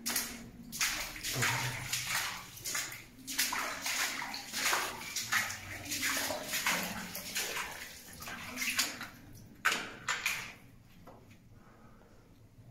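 Water splashing and sloshing in irregular bursts, as when someone wades through a flooded mine passage. The splashing stops about ten and a half seconds in.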